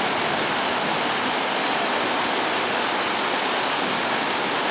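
River floodwater rushing through the breach in a collapsed low road bridge, a steady, unbroken rush of churning white water pouring through the gap in the roadway.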